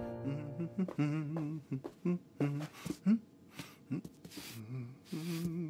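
A voice humming in short warbling phrases, joined from about the middle by brief swishing strokes of a comb and brush through a cat's fur.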